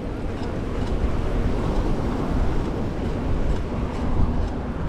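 Steady rumble of wind and road noise on the microphone of a bicycle in motion.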